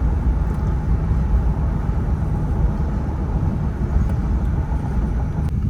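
Steady engine and road rumble heard from inside a moving vehicle's cab, with the turbos not kicked in.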